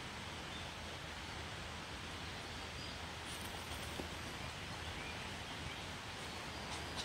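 Steady outdoor background noise, a rustling hiss, with a few faint, short bird chirps.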